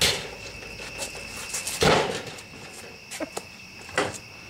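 A staged scuffle ending with a man shoved onto a metal garbage can: a loud clatter about two seconds in, then a few lighter knocks and clicks. Crickets chirp steadily throughout.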